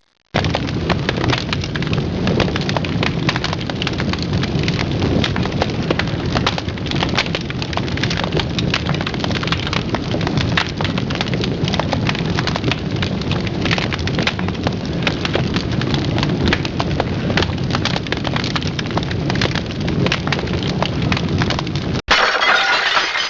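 Dense, continuous crackling and snapping over a steady low rumble, which cuts off suddenly about 22 seconds in and gives way to a short, brighter burst of noise.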